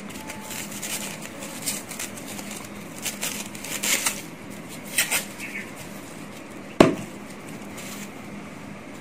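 Foam packing sleeve rustling and crinkling in short bursts as a model airliner fuselage is slid out of it by hand. A single sharp knock near the end, loudest in the stretch, as the model is set down on the table.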